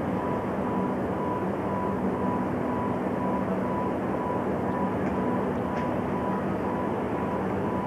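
Steady machinery drone with a constant low hum, from the docked railway ferry's machinery, with a couple of faint clicks about five and six seconds in.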